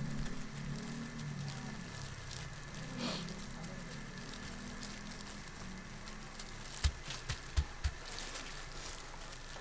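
Plastic-gloved hands pressing and spreading sticky seasoned rice over a sheet of gim (dried laver), a soft crackly rustle of gloves and rice, over a low background hum. A few short low thumps come about three quarters of the way through.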